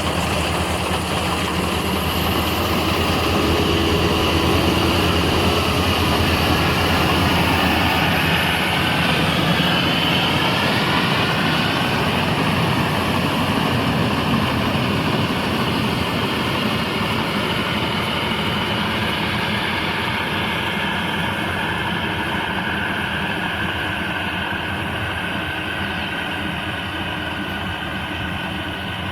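Small World Star rice combine harvester running: a steady engine drone mixed with the clatter of the machinery, rising slightly in level early on and slowly easing off toward the end.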